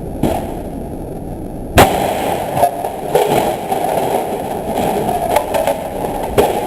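One loud bang about two seconds in, then a stretch of rattling clatter with a few more sharp knocks, from something being struck hard in a bid to fix a printer.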